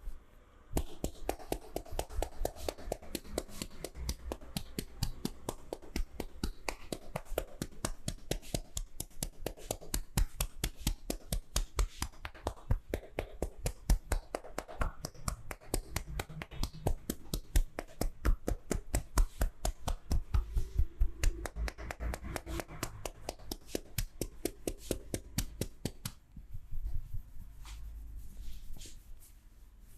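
Massage hands striking the body in rapid, even percussion strokes, about four slaps a second, each with a dull thud; the strokes stop about four seconds before the end, leaving softer handling sounds.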